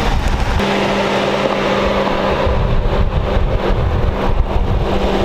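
A Ford Crown Victoria's V8 engine running with a steady hum as the car creeps forward. The sound changes abruptly about half a second in.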